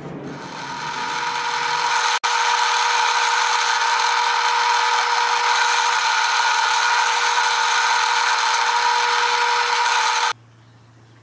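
Electric drill running at a steady high speed with a constant whine, cutting off abruptly near the end.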